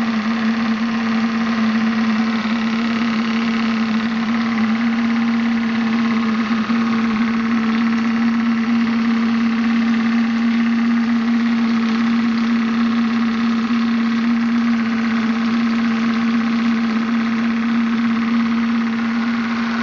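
Graupner 5000 model steam engine running steadily, driving a small water pump, with a constant hum and mechanical clatter. Water from the pump's hose splashes into a bucket.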